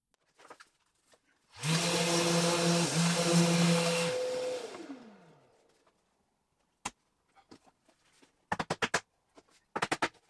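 A small electric motor runs for about two and a half seconds with a steady hum, then shuts off and winds down with falling pitch. Near the end come quick clusters of hammer taps on wood as a glued drawer joint that is too tight is driven home.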